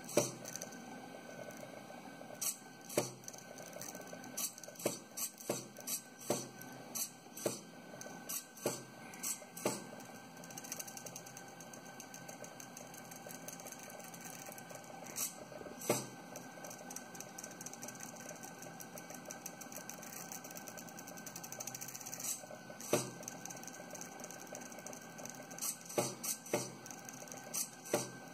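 Eggbot egg-drawing plotter at work: its stepper motors hum steadily as they turn the egg and move the pen. Frequent sharp clicks and taps come from the pen arm being lifted and set down by its small servo, thickest in the first ten seconds and again near the end.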